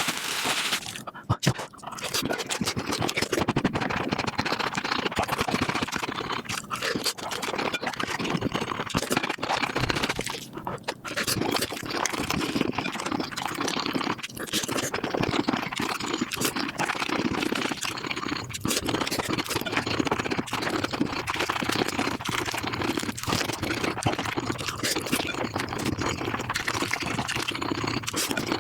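Mukbang eating sounds sped up five times: a dense, unbroken run of chewing and crunching noises, with a few sharp clicks about a second in.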